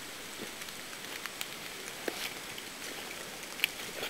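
Steady rain falling on woodland, with a few close, scattered raindrop hits.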